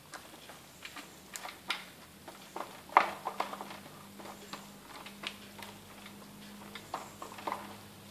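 Silicone spatula pushing and tapping caramel-coated popcorn across a silicone mat in a baking tray: irregular light clicks and clatter of the hard, coated popcorn, with the loudest knock about three seconds in.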